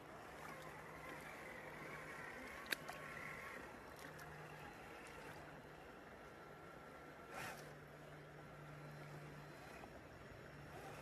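Faint flowing river water with a low steady hum that comes and goes. There is one sharp click a little under three seconds in and a short rush of noise a little past seven seconds.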